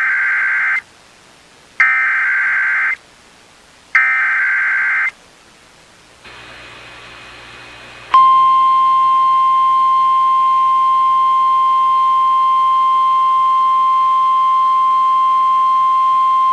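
Three roughly one-second bursts of Emergency Alert System SAME header data, the buzzing digital tones that open an alert, about two seconds apart. About eight seconds in, a loud, steady single-pitch alarm tone begins: the NOAA Weather Radio warning alarm that heralds the tornado warning that follows.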